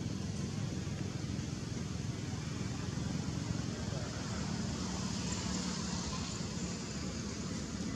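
Steady outdoor background noise: a low, even hum with a hiss over it and no distinct events.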